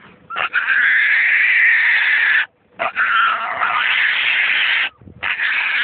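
Feral pig squealing in distress: three long screams of about two seconds each, with short breaks between them.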